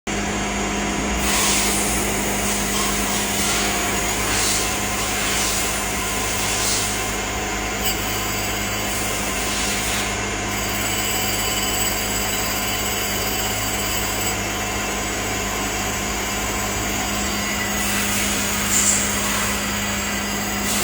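CNC machine running with a steady hum and a constant low tone. Several brief hissy surges come in the first seven seconds.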